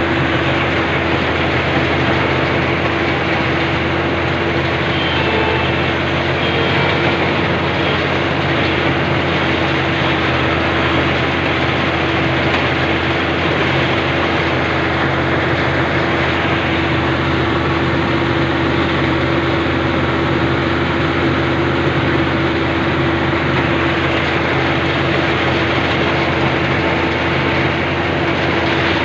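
Rice combine harvester running steadily, its engine and threshing machinery giving a constant hum with a strong steady tone.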